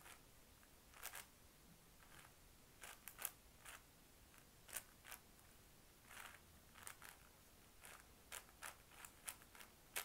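A 6x6 Rubik's cube's plastic layers being turned by hand through an edge-flip algorithm: faint, quick clicks and clacks, about fifteen in irregular bunches of one to three.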